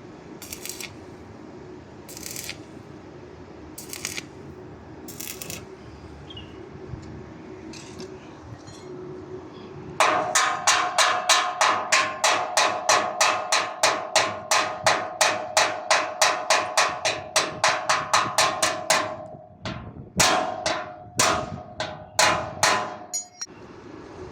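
Welding arc pulsing in a fast even rhythm of about four pulses a second with a steady buzzing tone under it, stopping and restarting irregularly near the end; short hissing bursts come before it starts.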